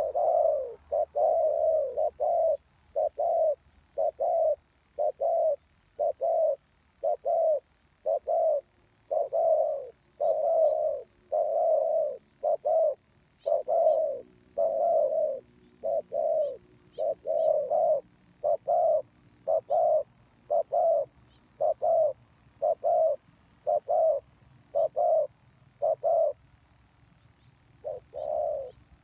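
Spotted doves cooing: a long, steady run of short low coos following one another about every half second to second, with a pause of about two seconds near the end.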